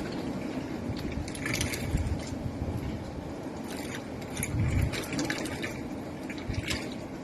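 Storm wind rumbling and buffeting the microphone, with scattered clattering and rattling of things knocked about by the gusts.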